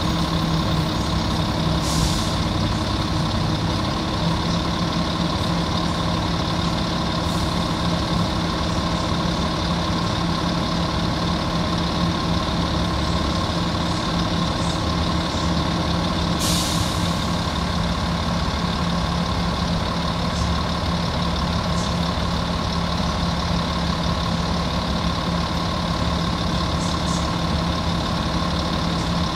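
Volvo D10A-245 six-cylinder diesel engine of a Volvo Olympian double-decker bus idling steadily. Two short hisses of released compressed air break in, a faint one about two seconds in and a louder one about sixteen seconds in.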